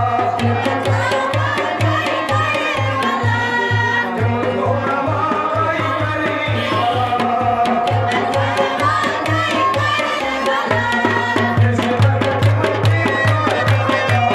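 Kashmiri folk song: a male voice singing over a steady beat of hand drums, including a clay pot drum, at about three beats a second, with sharp claps on top.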